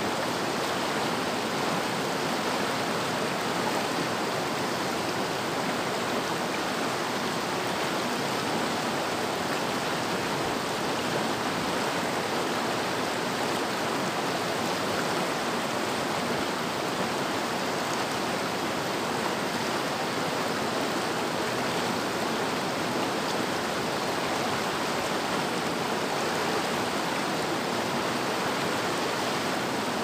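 River water rushing steadily: an even, unbroken rush with no change in level.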